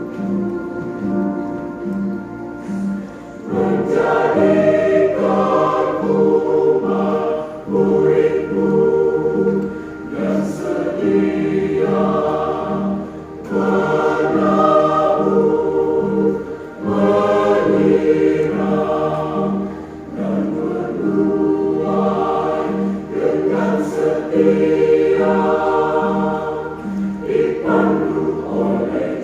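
Mixed church choir singing a hymn in several parts, over an accompaniment with a short low note pulsing about twice a second.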